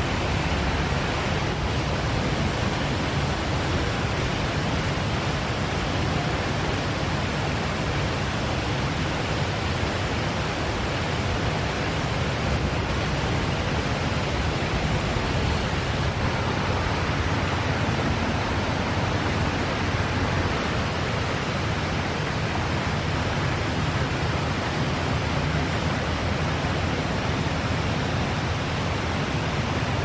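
Water in a fountain running and splashing steadily: an even, unbroken rushing hiss.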